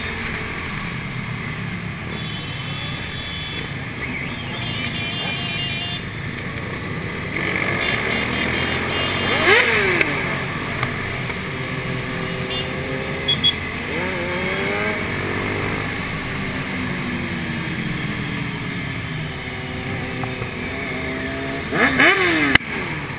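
Sport motorcycles riding together in city traffic: a steady engine drone under road noise, with engines revving up and back down several times, loudest about ten seconds in and near the end.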